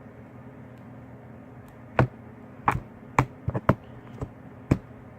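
A run of sharp, irregular taps or clicks, about eight of them starting about two seconds in, some close together, over a steady low hum.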